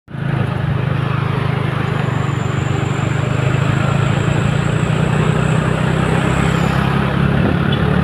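Steady low engine drone with road noise, heard from a moving vehicle on the road, with a faint high whine through the middle.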